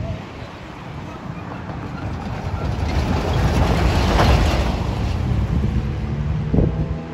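A pickup truck driving past close by over the railroad crossing, its tyre and engine noise swelling to a peak about four seconds in and then fading, with a brief knock near the end.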